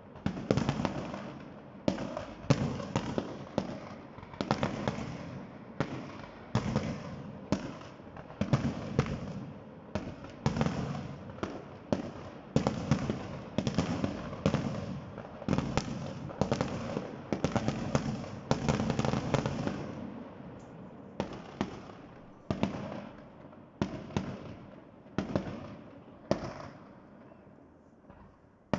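Aerial firework shells bursting in quick succession, each bang followed by a rolling echo. The barrage is dense for most of the time and thins out and grows quieter over the last several seconds.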